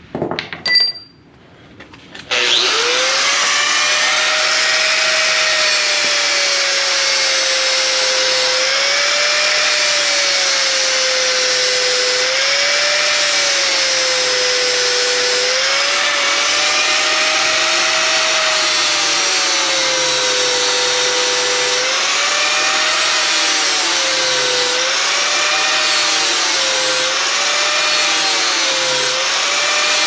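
A sharp metallic clank about a second in, then a corded angle grinder starts and runs steadily, grinding on the Jeep Cherokee XJ's steel door hinge pin. Its pitch keeps dipping and recovering as the disc bites into the metal.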